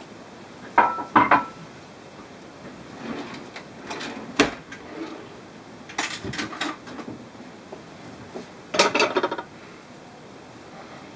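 Metal kitchen utensils and cookware clinking and knocking in several short bursts. The loudest are two ringing clinks about a second in and a rattle near the end.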